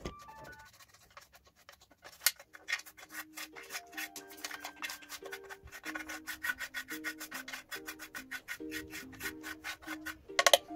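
Rapid scraping and rubbing strokes, several a second, with a sharp click about two seconds in and a louder cluster near the end, over a simple background music melody.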